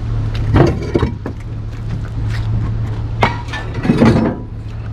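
Scrap metal clanking as heavy pieces are handled and thrown down: about five hard metal-on-metal impacts, some ringing briefly. A steady low hum runs underneath.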